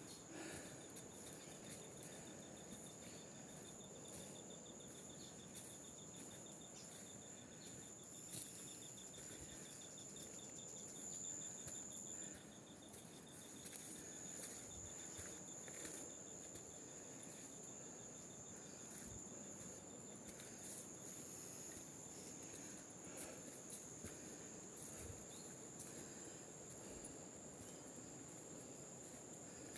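Faint, steady chorus of insects: a continuous high-pitched buzz, joined for the first half by a second, lower rapid trill that stops about halfway through, with a few faint scattered clicks.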